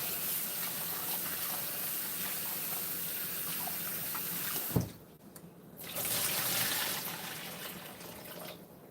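Water running from a tap into a sink, cut off with a knock about five seconds in, then running again briefly and tapering off near the end.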